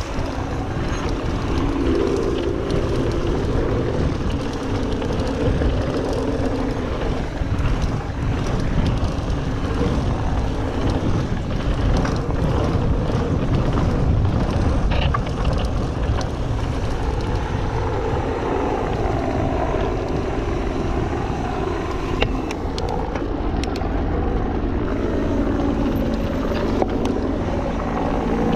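Wind rushing over the microphone and the tyres of a 2021 Giant Trance X mountain bike rolling over a dirt trail, with scattered clicks and rattles from the bike.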